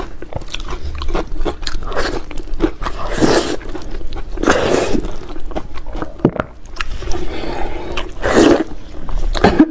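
Close-miked eating sounds of braised pork trotter: wet sucking and slurping at the skin and fat, with chewing and many small lip-smacking clicks. Three louder slurps come about three, five and eight and a half seconds in.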